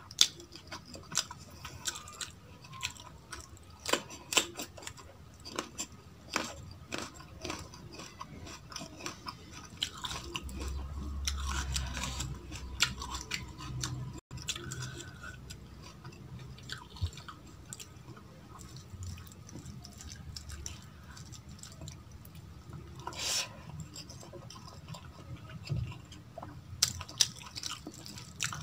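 Close-miked chewing and wet smacking as rice and dal are eaten by hand, with many short sharp clicks and the squish of food mixed on a steel plate. A louder, low-pitched stretch comes about ten seconds in.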